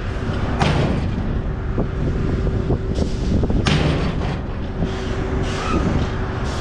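Tractor-trailer diesel engine running steadily with a constant whine, while an end dump unloads gravel through its swing gate, with a few sharp knocks at uneven intervals.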